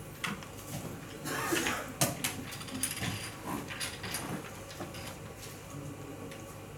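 Room sound of a playing hall: scattered light clicks and knocks with a short stretch of rustling about a second in, the sharpest click about two seconds in.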